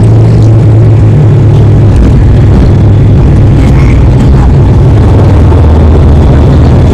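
Turboprop airliner's engines and propellers heard from inside the cabin as the plane rolls along the runway: a loud, steady drone whose pitch shifts about two seconds in.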